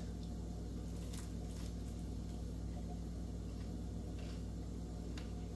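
Someone biting into and chewing sourdough toast topped with pan-fried lobster mushrooms, with a few faint crunches over a steady low hum.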